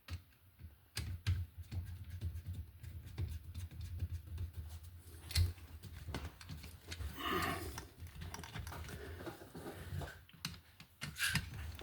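Small irregular clicks and scrapes of a screwdriver and copper wire on an electrical outlet's terminal screw, as the wire loop is fitted under the screw and tightened.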